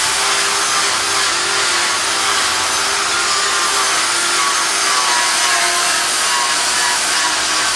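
Electric power tool sanding, its motor running steadily under a continuous hiss of abrasive on the surface, the motor pitch wavering slightly with the pressure applied.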